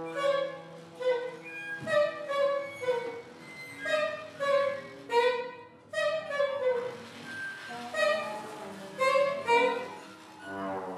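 Live ensemble music: a run of short, separate pitched notes, about two a second, from violins and grand piano.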